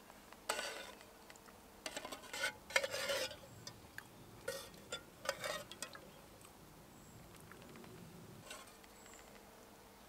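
Metal spoon scraping and clinking against a metal mess tin while scooping out thick pea soup, several scrapes and clinks over the first six seconds.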